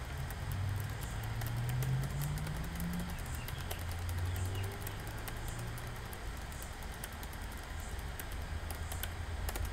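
Laptop keyboard keys (Delete, F2 and Escape) tapped over and over in quick succession at power-on to get into the BIOS, with a low hum underneath.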